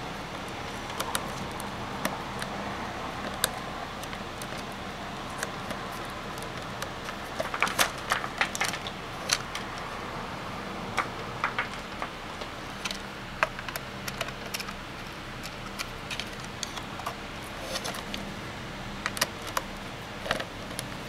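Scattered small clicks and clinks of hands handling a plastic solar charge controller, a screwdriver and a multimeter test probe at its screw terminals, with a quick cluster of clicks about eight seconds in and another near the end, over a steady low hiss.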